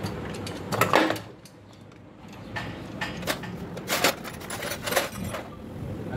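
Metal engine parts being handled: a louder knock about a second in, then several sharp clinks and taps as bolts and an aluminium valve cover are fitted.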